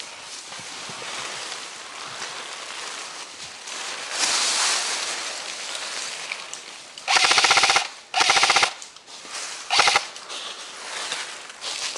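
Airsoft replica firing three loud full-auto bursts of rapid, evenly spaced shots, about two-thirds of the way in; the last burst is the shortest.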